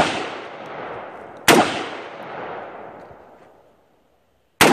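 AR-15 rifle in .223 firing single shots: three sharp reports, one at the start, one about a second and a half in and one right at the end, each followed by an echo that fades over a couple of seconds.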